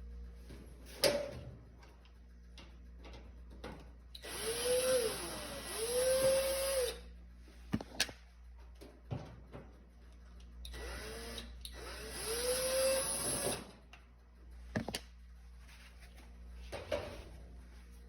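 Power drill run in two pairs of short bursts, its motor speeding up and slowing down with each trigger pull, with scattered clicks and knocks in between.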